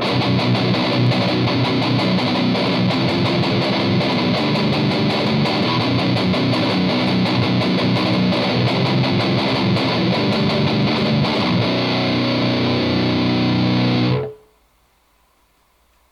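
Electric guitar played with heavy distortion through an Inferno Distortion pedal and Cab Screamer 60 power pedal into a speaker cabinet, miked with a Shure SM57: a thick, high-gain metal riff that stops abruptly about fourteen seconds in, leaving a faint hiss.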